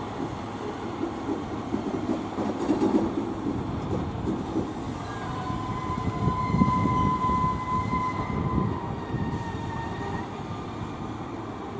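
A train moving through a station, its wheels rumbling on the track. About halfway through, a steady high tone joins in for several seconds, typical of squealing wheels or brakes.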